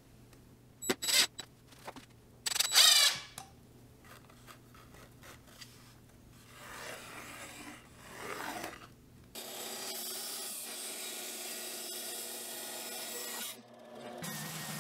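A few sharp clicks and knocks from handling a thin wood strip and pencil over a maple board, then pencil rubbing as a curve is traced along the bent strip. About nine seconds in, a bandsaw starts cutting the maple headboard: a steady sawing sound that breaks off briefly near the end and resumes.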